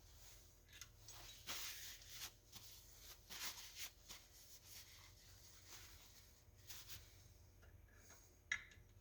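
Faint clinks, rubs and scrapes of small metal tools and parts being handled, with a sharp click near the end.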